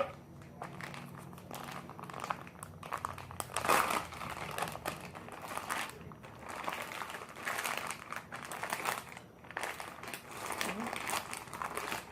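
Hands working and squishing slime, giving an uneven run of crinkling, crackling strokes that come and go.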